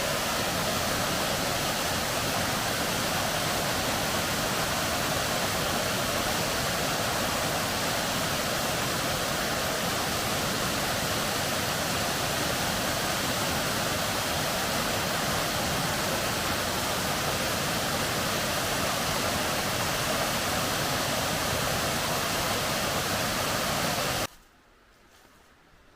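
Waterfall rushing, a loud, steady roar of falling water that cuts off suddenly near the end.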